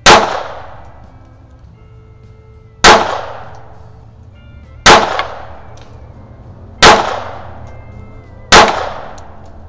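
Five shots from a WW2-production J.P. Sauer & Sohn Model 38H pistol in .32 ACP, fired slowly about two seconds apart. Each is a sharp crack followed by a short echo.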